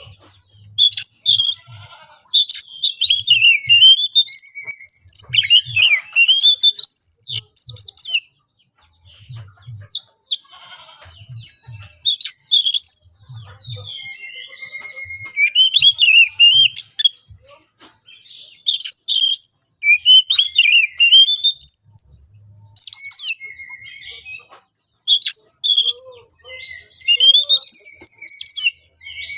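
Oriental magpie-robin singing loudly: a varied song of sweeping whistled phrases and rapid chattering notes, in bursts broken by short pauses. It is an excited, combative male song of the kind used as a lure to provoke other magpie-robins to answer.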